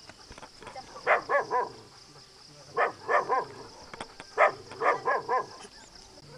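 A dog barking in three quick bursts: three barks, then three, then four.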